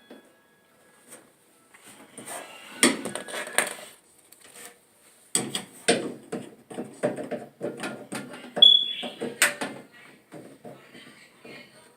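Knocks, clicks and rattles of hands and tools working on the clothes dryer's parts. A short burst comes first, then a longer run of rapid clatter with a brief squeak about nine seconds in.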